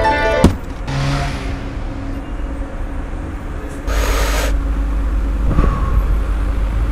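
Street background ambience with a low traffic rumble, which grows louder about four seconds in. A sharp click comes about half a second in, and a brief hissing rush comes about four seconds in.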